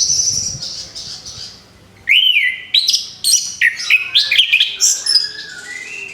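Orange-headed thrush singing: a high drawn-out note fades away, then after a short pause comes a fast, varied run of whistled phrases that slide up and down in pitch, easing off near the end.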